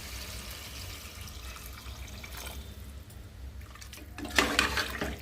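Chicken bubbling in the liquid it has released in a pressure cooker pot, a light watery hiss that fades over the first few seconds. About four seconds in comes a short loud burst of splashing and clattering in the pot.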